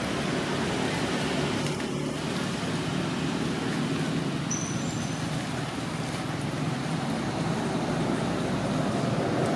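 Steady outdoor background noise with a low hum, like distant road traffic, and a brief high whistle about five seconds in.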